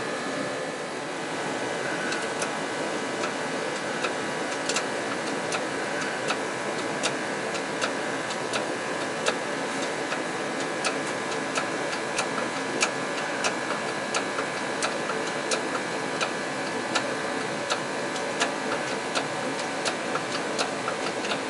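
Shop space heater running with a steady roar, under a light, even ticking that starts a couple of seconds in and goes at about three ticks every two seconds.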